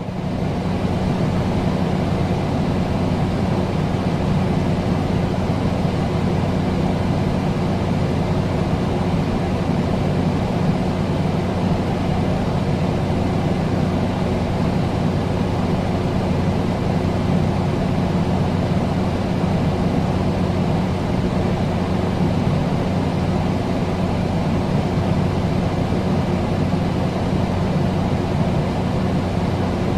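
Air conditioner running steadily: an even rush of fan air with a low, steady electrical hum underneath.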